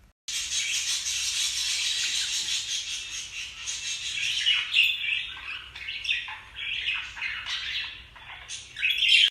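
Baby budgerigars chattering and squawking, high-pitched. The sound starts abruptly just after the start as a dense, continuous chatter, then breaks up into separate squawks and chirps from about halfway through.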